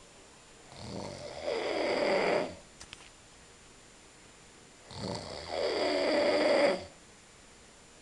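A man snoring loudly: two long snores about four seconds apart, each building up partway through and then cutting off.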